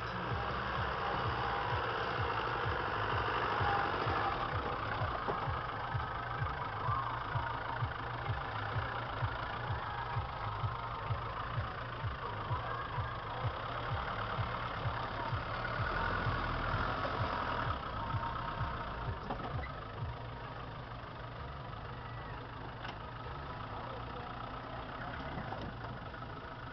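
Land Rover Defender 90's engine working at low revs as it crawls up a steep, rutted slope off-road, its note pulsing regularly. It eases back a little about twenty seconds in.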